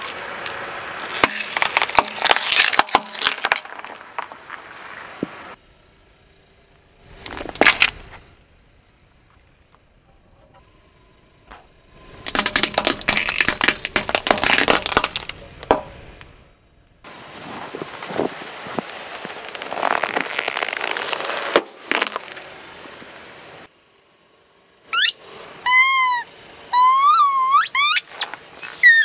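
A car tyre rolling over and crushing things in several separate bouts: a plate of hard candy-coated chocolates cracking and crunching, then more crackling and snapping of small plastic items. Near the end come a few squeals that rise and fall in pitch, from rubber pumpkin squeeze toys being flattened under the tyre.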